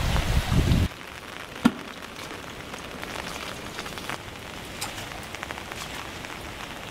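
Light rain pattering steadily with scattered drips, and one sharp knock about a second and a half in. It opens with a louder rush of flowing water that cuts off under a second in.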